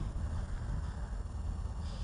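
Wind buffeting the microphone: a steady, irregularly fluttering low rumble.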